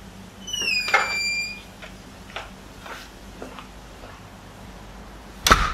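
An interior door being opened: a latch click and a high, slightly falling squeak about a second in, a few soft taps, then a sharp loud knock near the end.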